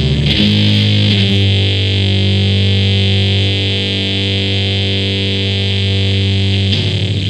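Music on distorted electric guitar. A chord is struck and held ringing for several seconds, then fast rhythmic playing starts again near the end.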